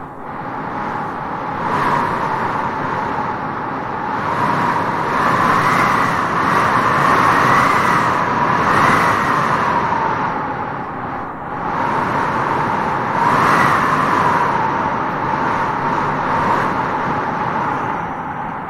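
Wind blowing through grass, a steady rushing that swells and eases in gusts, strongest in the middle and again about two-thirds through.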